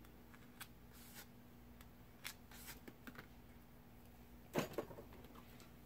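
Faint handling sounds of nail-stamping tools on a metal stamping plate: a few soft, scattered clicks and taps, with one slightly louder knock about four and a half seconds in.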